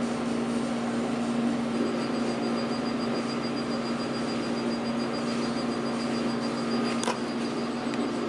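Laser hair-removal machine running with a steady hum. A thin, high-pitched tone joins about two seconds in and carries on, and a single sharp click comes near the end.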